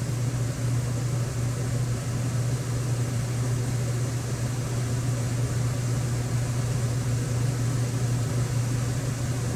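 Steady low hum under a faint even hiss, unchanging throughout, like background machine or room noise.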